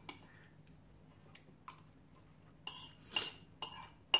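Metal chopsticks clinking and scraping against a bowl of ramen: a couple of faint taps, then a quick run of about five sharper clinks with a short ring near the end.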